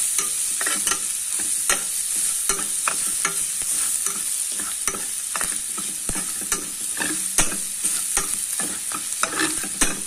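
Diced bacon and minced garlic sizzling in oil in a frying pan as the garlic fries toward golden brown. A metal spatula stirs them, scraping and clicking against the pan a few times a second over the steady hiss.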